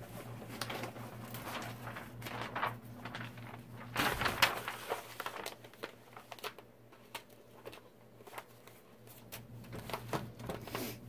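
Plastic-covered diamond painting canvas being handled and unrolled, its film crinkling and rustling in short, uneven crackles, with a louder burst of crinkling about four seconds in.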